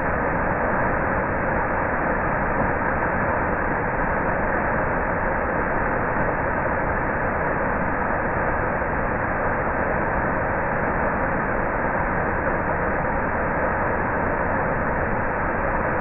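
Waterfall pouring over a rock ledge into a pool, a steady, even rush of falling water.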